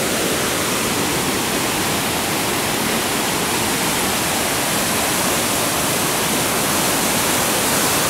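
River in flood pouring over rapids and a waterfall: a loud, steady rush of churning water that does not let up.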